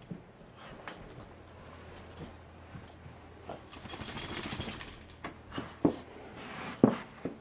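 Small terrier romping on carpet, scuffling and rubbing itself against the bedding and floor, with a rustling stretch in the middle and two sharp thumps near the end.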